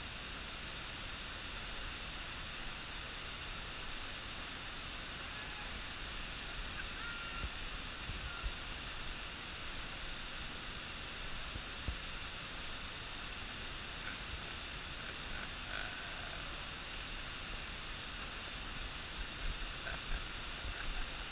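Steady rushing of a mountain torrent in the gorge below the bridge, with a few soft thumps about eight and twelve seconds in.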